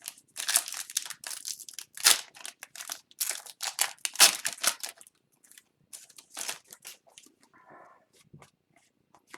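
Crinkling and tearing of a hockey card pack's foil wrapper, in quick rustles over the first five seconds, then fainter and sparser handling sounds.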